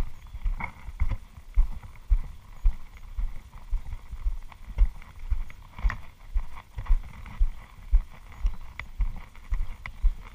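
Footsteps of a person walking along a dirt trail: steady low thuds at about two a second.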